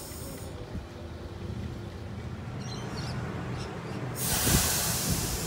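Sydney Oscar (H set) electric train rolling into the platform and running past close by, with a steady low rumble of wheels and carriages. A loud hiss starts about four seconds in as the carriages pass.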